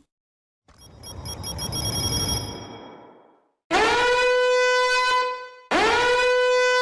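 A swelling whoosh that builds for about two seconds and fades away, followed by two long, steady horn-like blasts, each scooping up in pitch at the start.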